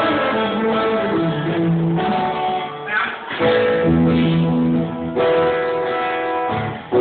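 Music with guitar, playing steadily with short breaks about three and six and a half seconds in.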